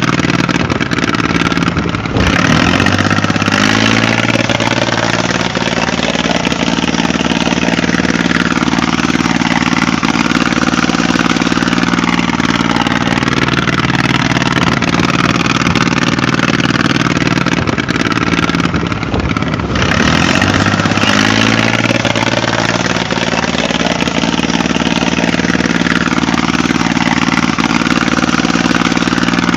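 Engine running steadily, with a brief break about two seconds in and again near twenty seconds, after which the same pattern starts over.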